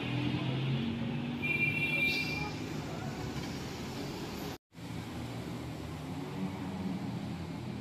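City street traffic at night: vehicle engines running as a steady hum under a hiss of traffic, with a brief high-pitched squeal about a second and a half in. The sound cuts out completely for a moment just past halfway, then the traffic noise carries on.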